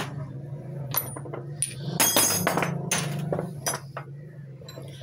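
Steel spanners and sockets clinking and clattering as they are picked up and set down on a wooden workbench, a string of sharp metal knocks with a busy clatter about two seconds in.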